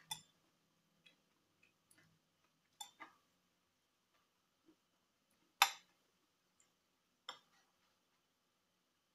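Faint eating sounds from someone eating noodles with chopsticks from a ceramic bowl. There are scattered short clicks of the chopsticks and mouth smacks, with one louder sharp sound a little past halfway.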